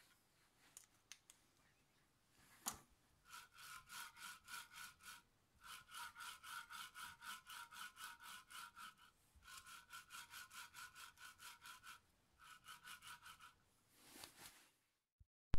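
Linear guide carriage rolling along its steel rail, its recirculating steel balls giving a fast pulsing whir of about five pulses a second, in four runs after a single click.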